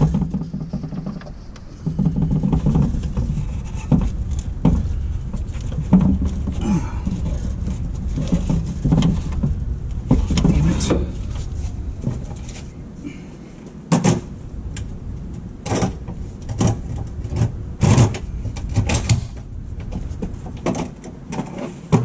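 Hand tools clinking and knocking against metal in a truck's engine bay, several sharp strikes in the second half, over a steady low rumble.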